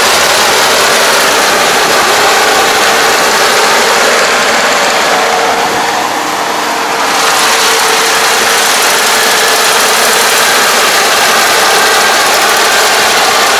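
Kubota ER587 diesel combine harvester running steadily while cutting and threshing rice, a loud, even mechanical din with a steady hum. The sound dips briefly in the middle.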